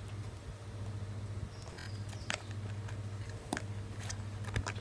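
Pink slime being squeezed and kneaded by hand in a plastic cup, giving a few sharp pops, about three, over a steady low hum.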